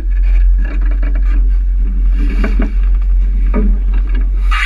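Tour boat under way: a steady low rumble from the boat, with a brief hiss near the end.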